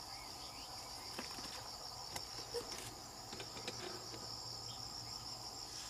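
Steady high-pitched insect chorus, a continuous trill with a slight pulse, with a few faint clicks near the middle.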